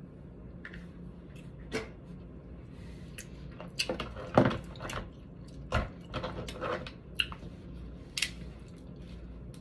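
Cooked snow crab leg shells being cracked and pulled apart by gloved hands: irregular sharp cracks and clicks, bunched most thickly about halfway through.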